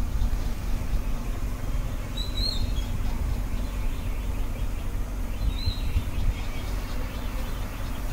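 Steady low background rumble with two short high bird chirps, one about two seconds in and a shorter one a little past the middle.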